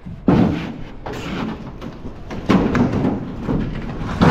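Wooden thuds and knocks, a handful about a second or two apart, from salvaged boards being pulled loose and handled.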